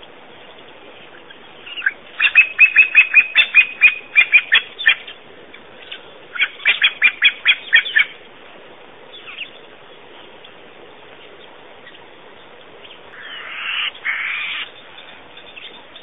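A bird calling loudly in two quick series of sharp, repeated notes, about four to five a second, the first of about a dozen notes and the second of about eight. A brief rushing noise follows near the end.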